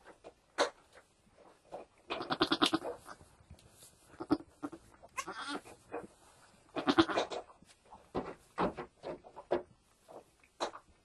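Goat bleating three times: a long bleat about two seconds in, a short one near the middle and another a second or so later. Between them come small clicks and rustles in the straw as the doe licks her newborn kid.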